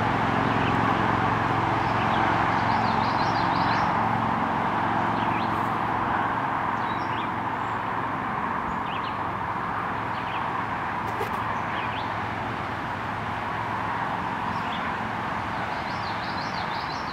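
Steady outdoor hum with a low drone that fades over the first few seconds, and brief high bird chirps scattered throughout.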